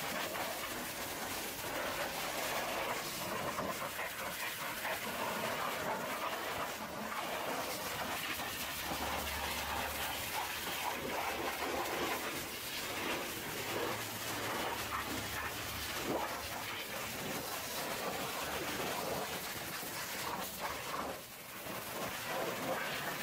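High-pressure washer lance spraying water onto the mud-caked steel chassis and leaf springs of a small dump truck: a steady rushing hiss, with a low hum for several seconds in the middle.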